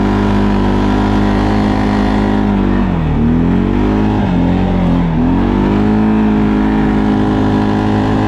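Arctic Cat ATV engine running under steady throttle while riding, its pitch dropping and climbing back twice near the middle as the throttle is eased off and reapplied.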